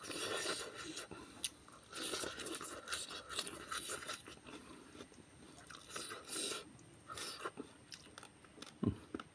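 Close-up chewing of food, wet and crunchy in places, in irregular bursts with short pauses between, and one brief low falling thud near the end.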